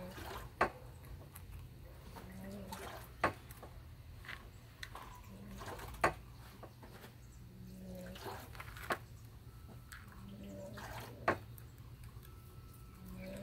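Sharp slaps and thuds from a taekwondo poomsae performed solo: about five hard strikes or stamps a few seconds apart, over a low steady hum.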